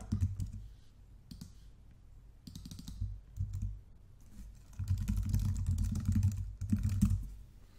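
Typing on a computer keyboard: a few scattered keystrokes, then a quick run of keys about two thirds of the way in.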